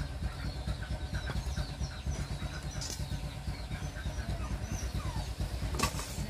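A low engine rumble running steadily throughout, with one sharp knock near the end.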